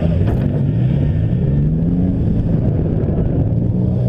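Several demolition derby engines running and revving together, their pitches rising and falling over one another.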